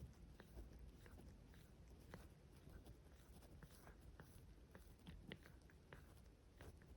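Cats grooming each other: faint, irregular wet clicks of tongues licking fur, with an occasional nibble.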